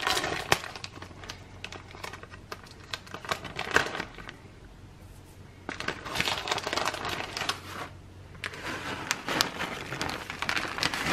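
Plastic bag of shredded mozzarella crinkling as the cheese is shaken out of it, in spells of rustling with short pauses between them.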